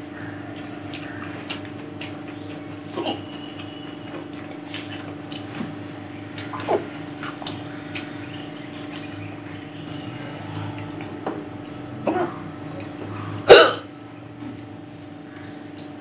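Eating by hand: rice being mixed on a plate and chewed, with small clicks and mouth sounds over a steady hum. There are a few short louder mouth sounds, and a sudden loud one about thirteen and a half seconds in that stands well above the rest.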